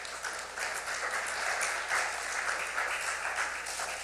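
Congregation applauding, many hands clapping together.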